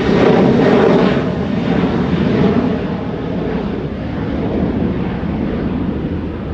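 Engines of a large military aircraft passing close, loud at first, then fading and growing duller over the last few seconds as the aircraft moves away.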